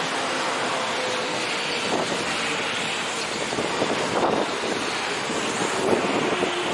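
Kintetsu limited express train running past on the adjacent track: a steady rush of wheel and running noise with a faint steady tone, and a few louder knocks about four and six seconds in. Wind buffets the microphone.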